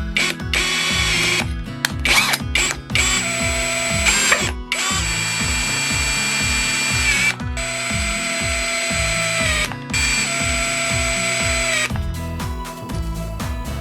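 Power drill running in about five bursts of one to three seconds, its motor whine dropping briefly in pitch as each run stops, over background music with a steady beat.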